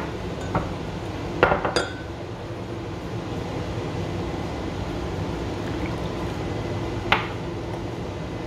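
Juice being poured from drinking glasses into glass measuring jugs, with a few sharp clinks of glass against glass near the start and one more near the end.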